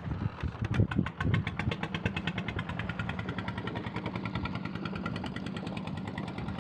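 Boat engine running steadily with a fast, even chug, with a few heavier low thumps in the first second and a half.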